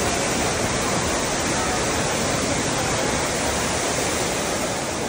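Fountain's tall water jet shooting up and splashing back down into its pool: a steady, even rush of falling water.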